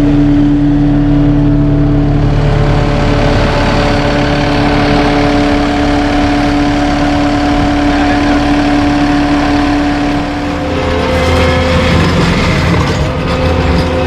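Engine of a tracked skid steer with a forestry mulcher attachment, running steadily. About ten seconds in, its note shifts and a rougher, higher-pitched noise joins it.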